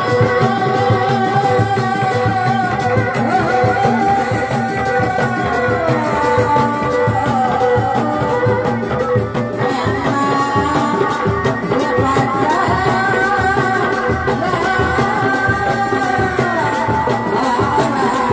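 Sundanese dogdog drums beaten in a steady, dense rhythm, with a continuous wavering melody gliding over them: reak street music.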